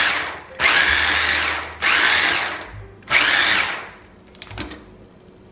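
Stick blender's electric mini chopper attachment whirring in short pulses, about four bursts of a second or so each, as it chops red onion and bell pepper. It stops about four seconds in, and a few light knocks follow.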